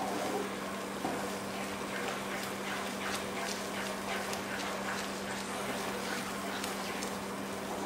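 Wooden spatula stirring and scraping thick semolina halwa around a nonstick pan, in soft, irregular scraping strokes, while the added water cooks off. A steady low hum runs underneath.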